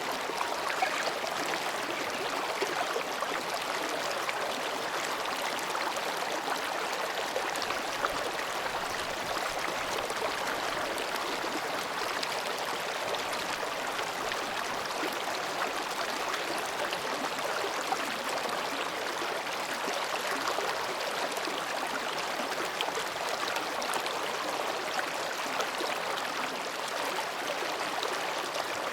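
Shallow mountain stream babbling over and between rocks: a steady, even rush of water with small splashes and gurgles throughout.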